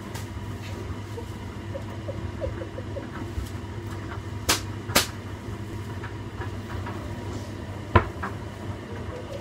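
Washing machine running with a steady low hum while the bed tumbling in the drum knocks against it: light clicks early, two sharp knocks about halfway through and another sharp knock near the end.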